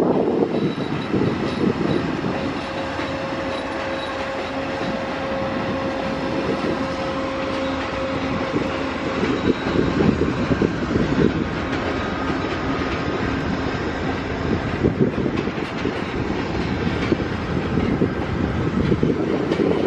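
VIA Rail Canada train rolling past on the track: a steady noise of wheels on rails, with many small irregular knocks and a faint held whine.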